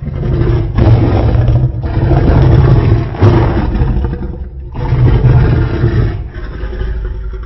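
Custom Godzillasaurus monster roar sound effect, layered from slowed animal and dinosaur roars. It is deep and loud and rises out of silence in several surges, weakening and tailing off near the end.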